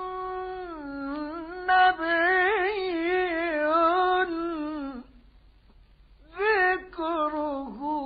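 A high, unaccompanied male voice singing a long ornamented melisma from an Egyptian religious tawshih, wavering and turning in pitch, heard through an old narrow-band radio recording. The phrase ends about five seconds in, and a new one begins just over a second later.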